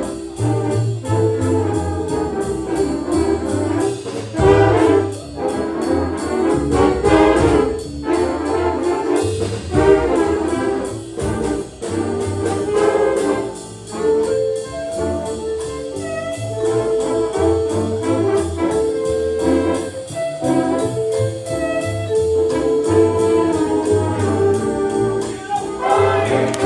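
Jazz ensemble playing a swing tune live, brass horns holding chords and notes over a steady beat.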